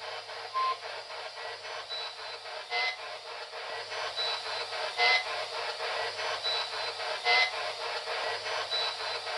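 Spirit box radio scanner sweeping through stations, giving a fast, choppy static. A short louder burst repeats about every two seconds: the fragment replayed as the supposed spoken answer "José".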